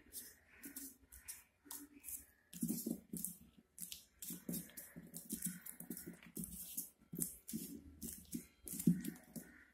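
Paper crinkling and rustling as hands press and smooth it around a ball, in quick, irregular strokes that grow busier after the first two or three seconds.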